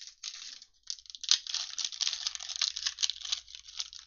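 Foil wrapper of a football trading-card pack crinkling and tearing as it is opened by hand, with a sharp crackle just over a second in.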